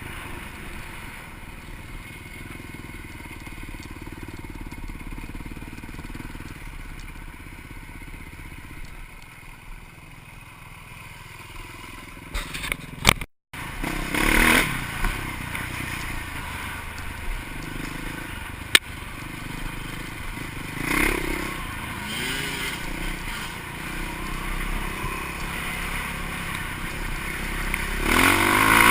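Engine of an off-road vehicle running under load, with a few louder surges, and a brief cut-out to silence about halfway through.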